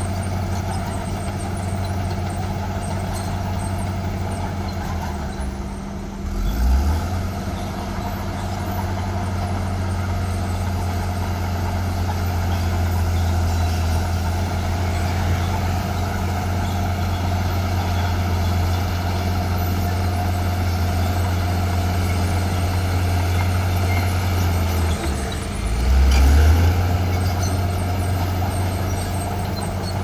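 Crawler bulldozer's diesel engine running steadily under load as it pushes soil. Twice, about six seconds in and again about twenty-five seconds in, the engine note dips and then briefly swells louder.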